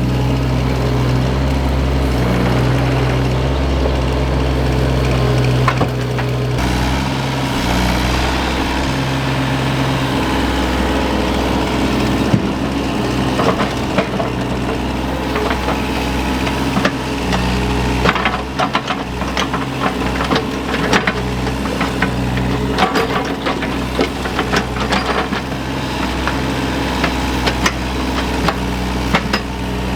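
Engine of a small earth-moving machine running steadily, with repeated sharp knocks and clatter through the second half.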